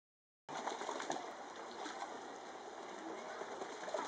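Ducks bathing in a small pond, their wings and bodies splashing the water, with scattered low calls from the flock. The sound cuts in abruptly about half a second in.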